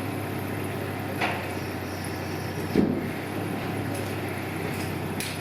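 Engine of the heavy equipment lowering the storm shelter into its hole, running steadily, with three short knocks, the loudest about halfway through.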